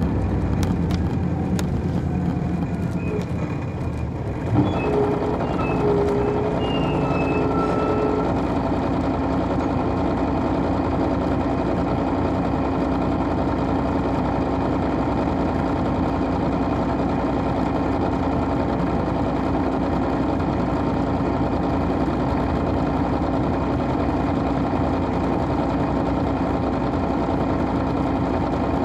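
Detroit Diesel Series 60 diesel engine of an MCI D4000 coach bus running steadily, a constant drone with a sudden thump about four and a half seconds in.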